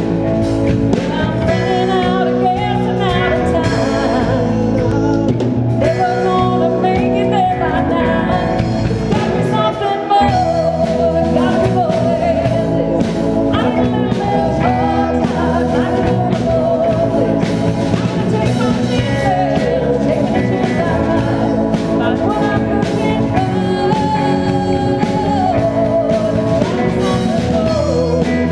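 Live band playing through a PA: a woman sings lead over electric guitar, bass guitar, keyboards and drums.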